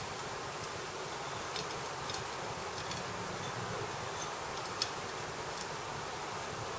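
Steady faint background hiss, with a few soft clicks and taps from hands sprinkling ground peanuts out of a bowl onto mashed soaked sago seeds and mixing them on a plate; the sharpest click comes about five seconds in.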